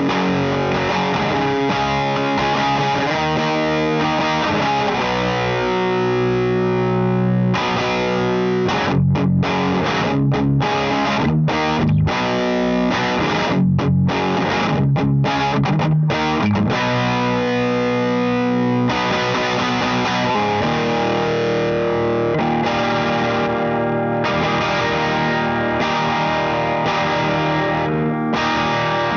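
Electric guitar played with distortion through an LPD Pedals Sixty8 Deluxe pedal into a Satellite Neutron amp. Ringing held chords, then a run of short, choked chords with brief silences between them, then held chords again near the end.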